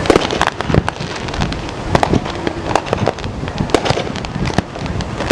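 Many consumer fireworks going off at once: a dense, unbroken run of bangs, pops and crackles, several a second.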